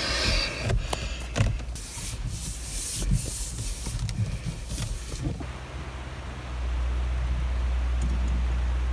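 Rubbing and rustling handling noise on a phone's microphone, with scattered clicks, for about five seconds. Then a steady low hum takes over and grows louder about a second and a half later.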